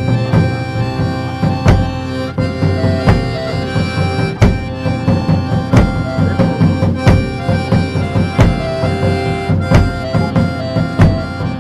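Background music: held melody notes over a steady drum beat.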